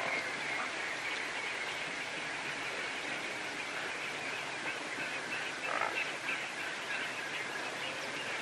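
Outdoor wildlife ambience: a steady, high-pitched chorus of many small calling animals with dense chirping, and one louder, lower call about six seconds in.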